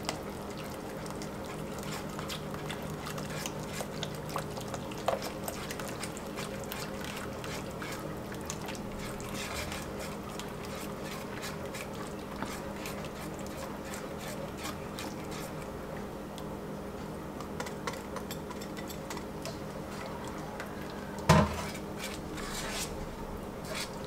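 A whisk stirring broth in a cast iron Dutch oven as a flour-and-water slurry is poured in to thicken it: soft liquid swishing with many light ticks of the whisk against the pot, over a steady low hum. One louder knock against the pot near the end.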